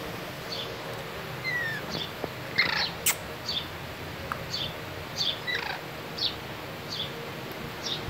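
Young lutino Indian ringneck parakeet giving short, high chirps, one every half second to a second, some sliding down in pitch. A single sharp click comes about three seconds in.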